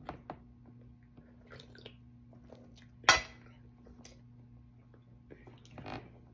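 Quiet breakfast sounds: small clicks and soft chewing, with one sharp clink about three seconds in as a ceramic coffee mug is set down. A steady low hum runs underneath.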